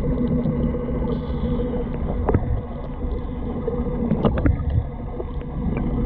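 Muffled underwater sound from a camera in a waterproof housing below the surface: a steady low rumble of moving water, with a few sharp knocks about two seconds in and again a little after four seconds.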